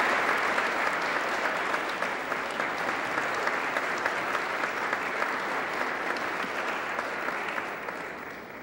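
Audience applauding steadily in a large hall, fading out near the end.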